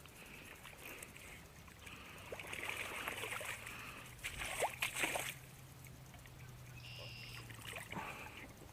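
Splashing and sloshing in shallow muddy water as a hooked brown bullhead is dragged through the shallows and grabbed by hand, with the loudest splashes about four to five seconds in.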